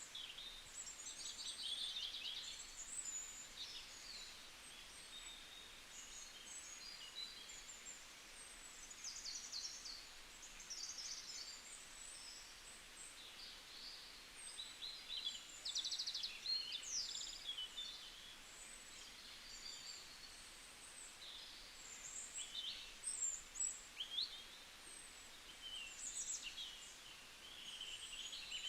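Several songbirds singing and calling over one another in a forest, with many short high chirps, trills and quick sweeps, over a faint steady hiss of background noise.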